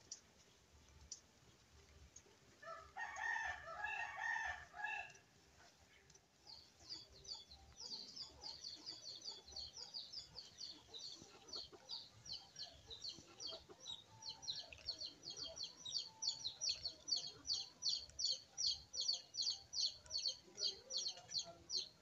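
A rooster crows once, about three seconds in. From about six seconds a rapid run of short, high-pitched chirps starts, about four a second, growing louder toward the end.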